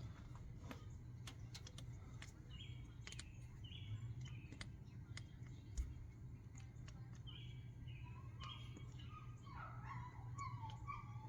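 Birds chirping in the background, short calls repeated every second or so, with a run of warbling notes near the end. A low steady hum and scattered faint clicks lie beneath.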